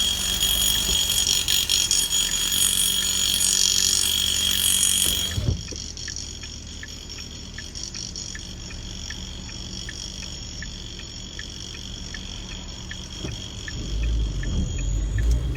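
A loud, steady, high-pitched machine whine from roadworks that cuts off abruptly about five and a half seconds in. A steady ticking about twice a second follows, with a low engine rumble rising near the end.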